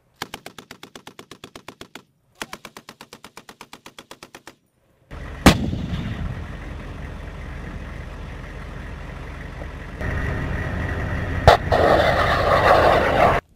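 Belt-fed machine gun firing two long rapid bursts. Then a single heavy gun blast, the steady engine rumble of armoured vehicles, and a second blast near the end.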